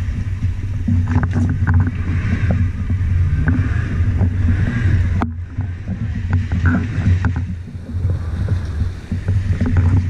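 Small boat's outboard motor running with a steady low hum, with water splashing and slapping against the hull and wind on the microphone.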